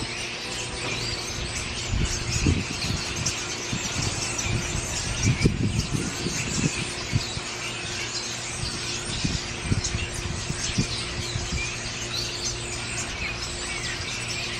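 Outdoor ambience of many small birds chirping, with irregular low thumps of wind buffeting the microphone.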